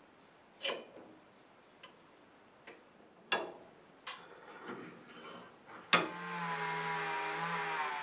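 A few sharp metal clicks and taps as a small brass lighter part is handled with pliers on a steel bench vise. About six seconds in, a handheld rotary tool switches on with a sharp click and runs with a steady whine.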